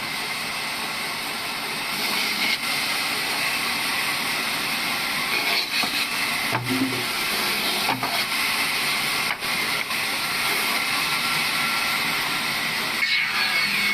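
Sawmill machine running with a steady mechanical noise that grows louder about two seconds in, with a few faint knocks.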